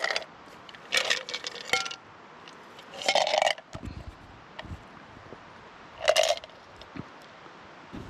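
Small hard objects being handled: a few short scrapes and clinks, in separate bursts about a second, three seconds and six seconds in.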